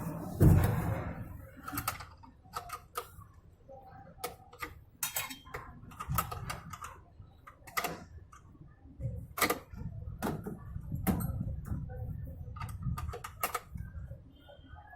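Irregular clicks and knocks of metal parts and tools being handled on a top-load washing machine's gearbox and lever assembly during adjustment, over a low rumble. A louder knock comes about half a second in.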